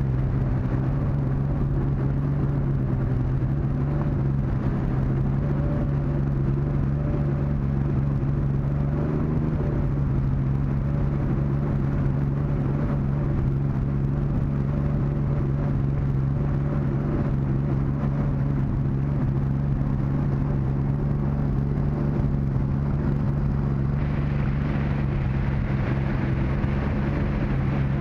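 Boat's outboard motor running steadily at low speed, a constant low hum. A brighter hiss joins it about four seconds before the end.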